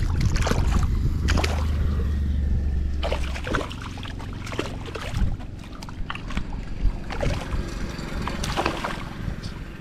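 A hooked fish thrashing and splashing in shallow, weedy water as it is landed, with water sloshing around wading legs. A low rumble of wind on the microphone covers the first few seconds.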